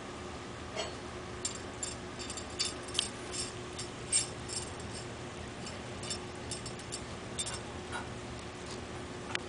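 Two cats licking soft food off a metal spoon on a tile floor: irregular small clicks and light clinks of tongues and the spoon, most frequent in the first half.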